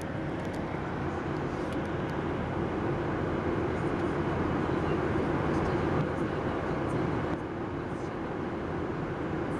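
Steady cabin noise inside a Boeing 737-700 in flight: the drone of its CFM56-7B turbofan engines and the rush of air over the fuselage, even throughout.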